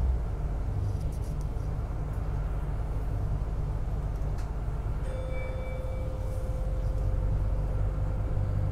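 Inside a city bus, the engine rumbles steadily as it moves through traffic. About five seconds in, the stop-request bell chimes: one clear tone whose upper ring fades within a second while the main note rings on for about three seconds.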